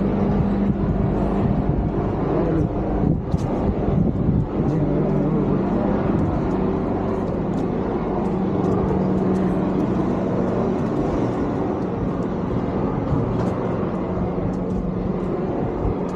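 An engine running steadily with a constant low hum, amid outdoor street noise and a few scattered clicks.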